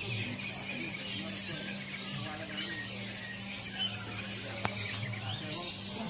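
Many caged small songbirds chirping and twittering at once in a dense, continuous chorus. A steady low hum runs underneath, and a single sharp click sounds about four and a half seconds in.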